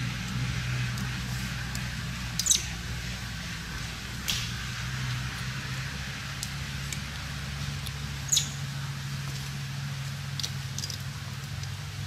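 Short, high squeaks from macaques, loudest about two and a half, four and eight seconds in, with a few fainter ones, over a steady low hum.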